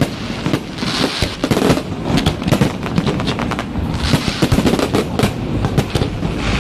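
Fireworks display: a rapid, dense run of bangs and crackles from bursting aerial shells, with a short hissing swell about a second in and again about four seconds in.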